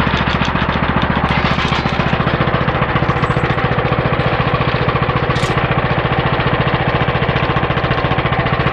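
A 14 hp 420cc single-cylinder engine running steadily at speed, driving the homemade bandsaw mill's blade wheels through its engaged clutch.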